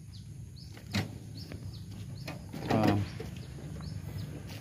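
A small bird giving a run of short, high, falling chirps, a few each second, outdoors over a steady low hum. A sharp knock comes about a second in, and a brief louder sound near three seconds in.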